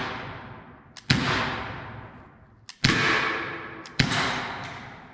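Three loud shots from a Luger pistol: about a second in, just before three seconds, and at four seconds. Each comes just after a faint click and is followed by a long echo fading off the walls of the bare room.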